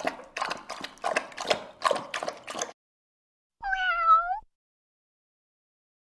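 Domestic cat sounds: a run of rough, pulsing noises for the first few seconds, then, after a short pause, a single meow that dips and then rises in pitch.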